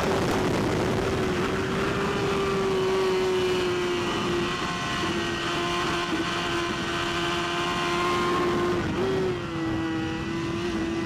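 Superbike inline-four engine running hard on track, heard onboard under heavy wind rush. One steady high engine note sinks slowly and jumps briefly about nine seconds in.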